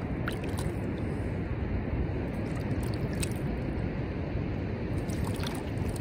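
Steady wind noise on the microphone over beach surf, heaviest in the lows. A few faint short wet ticks come through, one near the start, one mid-way and one near the end, where dripped sand slurry lands on the castle's spires.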